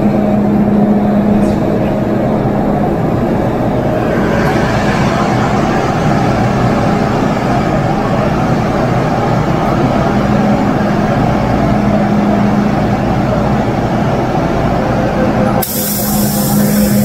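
Inside an MTR M-Train electric multiple unit standing at a station platform: a steady electrical hum over the general running noise of the car, and near the end a loud hiss of released air from the train's pneumatic system.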